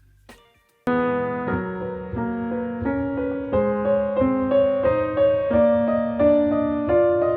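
Background music: after a brief near-silent gap, a soft piano piece starts abruptly about a second in, playing a slow, even succession of held notes and chords.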